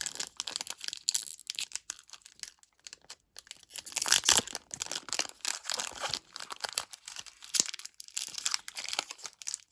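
Foil wrapper of a Pokémon booster pack being torn open and crinkled by hand, in a run of irregular crackles and rips, loudest about four seconds in.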